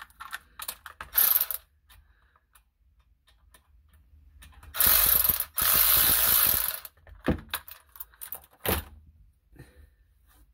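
Hand-tool and hose-clamp noise while a cooling hose clamp is worked loose: scattered sharp metal clicks, then two loud rattling runs of about a second each around the middle, then a few single clicks.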